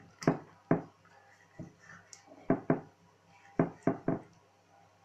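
Kitchen knife cutting through a raw wild goat heart on a wooden cutting board: about eight short knocks as the blade comes down onto the board, some in quick pairs and a quick run of three near the end.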